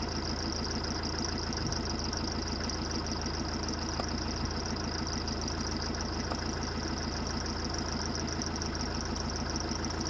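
A vehicle engine idling steadily, a low even hum with no change in speed.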